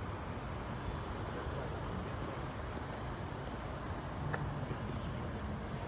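Steady low rumble and hiss of road traffic idling and running, with a faint click about four seconds in.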